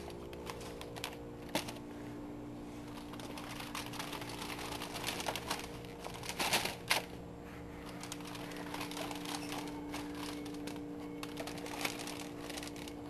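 Boxes and wrapped packages being handled on a store shelf: irregular clicks, taps and rustles, louder about six and a half to seven seconds in, over a steady low hum.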